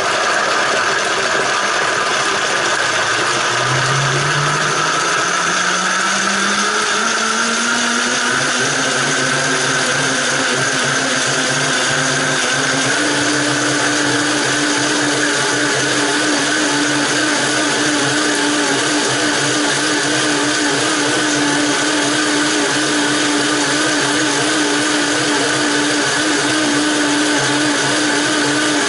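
Vitamix blender running on its smoothie program, blending fruit, spinach and ice into a smoothie. It is a loud, steady whirr whose motor pitch climbs over the first ten seconds or so and then holds level as the mix turns smooth.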